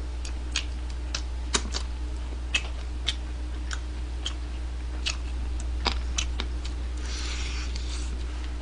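Close-miked eating of fried chicken wings: irregular sharp, wet mouth clicks and smacks from chewing and licking the fingers, with a short breathy sound about seven seconds in, over a steady low electrical hum.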